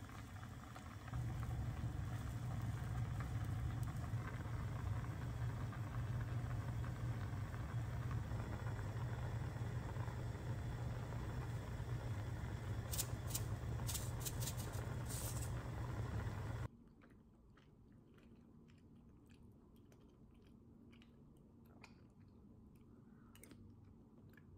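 A pot of dough-flake soup at a rolling boil on a gas burner: a steady bubbling and flame noise with a low hum. A few quick rattles come about 13 seconds in as ground pepper is shaken in. It cuts off sharply about 17 seconds in, leaving faint spoon clicks and chewing.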